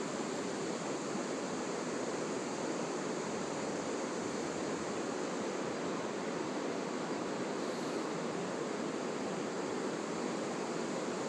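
Steady, even rush of flowing river water, with a faint high hiss above it.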